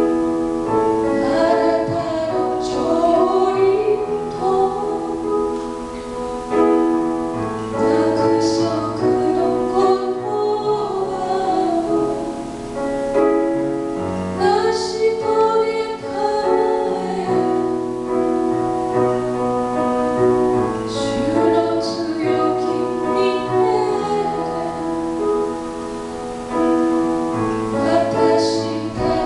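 A woman singing a solo with a wavering vibrato, accompanied by grand piano.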